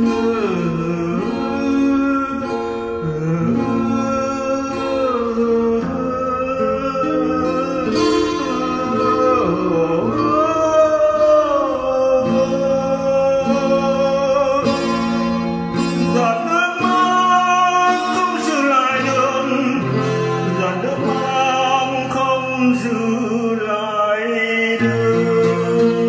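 Slow song: a voice singing a melody over improvised acoustic guitar.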